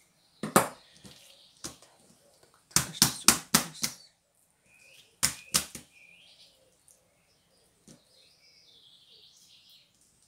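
A kitchen knife knocking sharply on a table as it cuts a meat-filled dough roll into pieces: a couple of knocks, then a quick run of about five, then two more.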